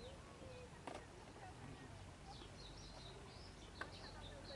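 Faint small birds chirping over low outdoor background noise, with two short sharp clicks, about a second in and near the end.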